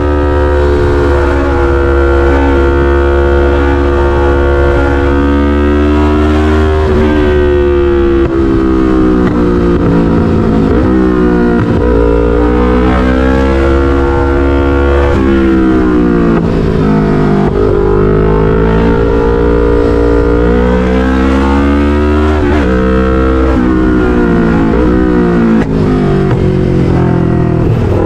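Yamaha MT-03's 321cc parallel-twin engine running through an SC-Project full exhaust at highway speed. Its revs rise and fall several times as the throttle is opened and rolled off. A steady low wind rumble sits underneath.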